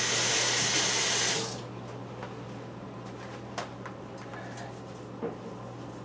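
Kitchen sink faucet running full while hands are washed after handling raw meat, shut off suddenly about a second and a half in. A few light clicks follow.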